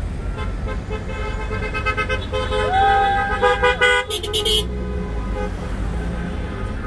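Car horns honking from several passing vehicles, overlapping toots with one long held blast about three seconds in, over the steady low rumble of car engines and traffic.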